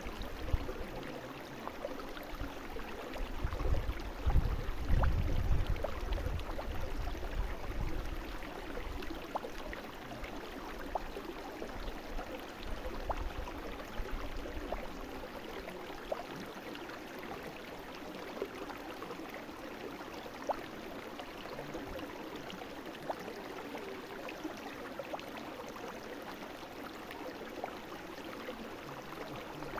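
Brook water running over stones: a steady babble with scattered small splashes and trickles. From about three to eight seconds in, a heavy low rumble rises over it and fades away.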